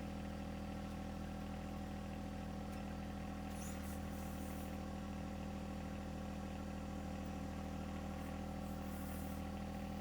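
John Deere 1025r compact tractor's three-cylinder diesel engine running at a steady speed.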